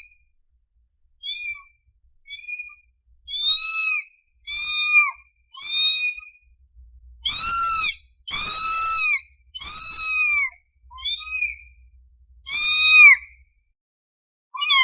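Kitten meowing repeatedly in high, thin calls, about one a second, each rising then falling in pitch; the calls are loudest in the middle. It is a hungry kitten calling for its mother.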